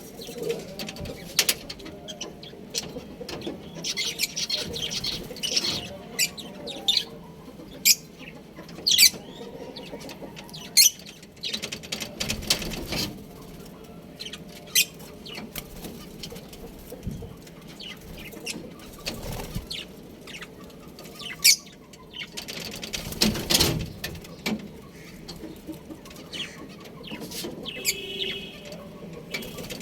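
Budgerigars chirping in many short, high calls, with a couple of longer bursts of wing flapping about a third and three quarters of the way through.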